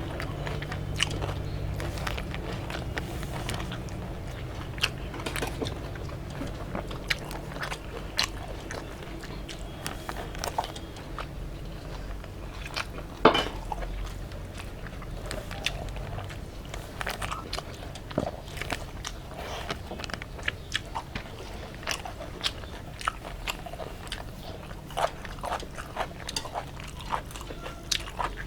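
Close-up chewing and biting of home-cooked rice, omelette and curry, with many short, sharp mouth clicks and crunches at irregular intervals.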